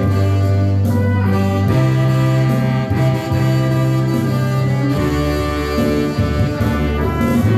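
Slow instrumental praise music with long held notes that change every second or two; no singing.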